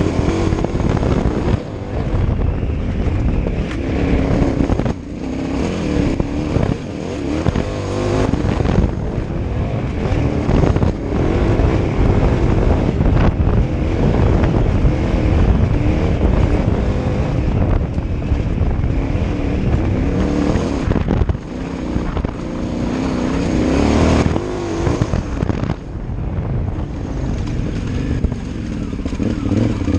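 KTM 990 Adventure R's V-twin engine running as the bike rides a gravel track, the throttle rising and easing off, with a few brief dips in the engine note.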